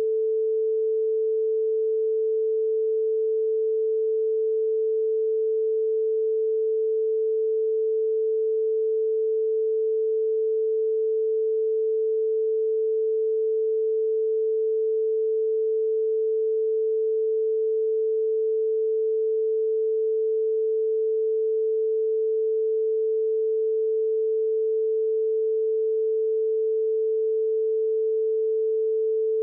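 A single steady, unwavering pure beep tone held at one pitch, a censor tone laid over redacted speech in the interview recording.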